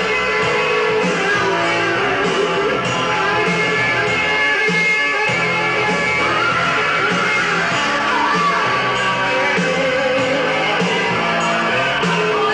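Rock-style music with guitar and a singing voice, playing steadily.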